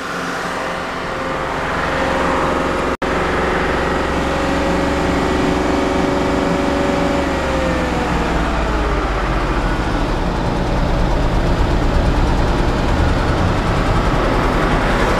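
BMW N63 4.4-litre twin-turbo V8 running steadily at a raised speed of around 2000 rpm during an intake-valve carbon cleaning, aimed at a persistent cylinder 7 misfire. The engine speed is brought down about eight seconds in, and it runs on lower after that, with a momentary break in the sound about three seconds in.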